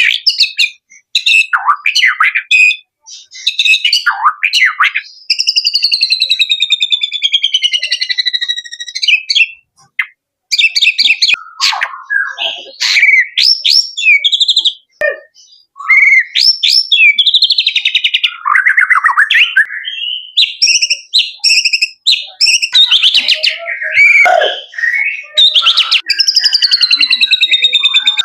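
Male white-rumped shama singing a loud, varied song of rapid trills, sweeping whistles and quick chattering phrases, broken by short pauses.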